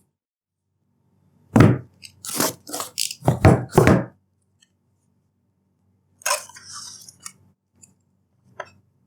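Handling of a tablet's retail box and packaging: a run of sharp knocks and taps for about two and a half seconds, then a brief rustle a few seconds later and a single click near the end.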